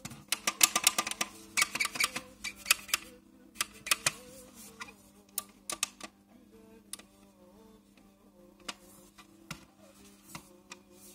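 Rapid clicks and taps from a toilet-cistern lid's push-button mechanism and its shell as the lid is handled, thick in the first four seconds and then sparser. A faint steady hum and quiet background music run underneath.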